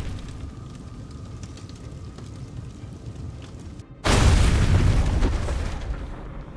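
Explosion: a sudden loud blast about four seconds in, followed by a rumble that fades over about two seconds.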